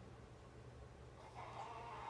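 Faint whir of the battery-powered Cat's Meow toy's motor turning its wand under the fabric cover, over a steady low hum; the whir comes up again about one and a half seconds in.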